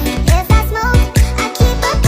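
Background music with a steady, fast beat and a sung melody.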